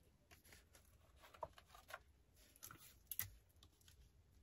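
Faint rustling and light ticks of a sheet of sublimation transfer paper being handled and laid on a sock, with one sharper click about three seconds in.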